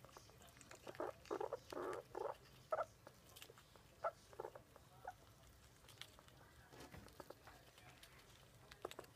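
A squirrel eating a hazelnut, making a run of short noises, about eight in the first five seconds, with scattered small clicks from the nut.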